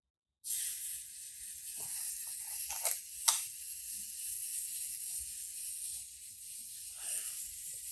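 A film camera's mechanical self-timer buzzing steadily as its clockwork escapement runs down after being set off. A few light clicks come from handling about three seconds in.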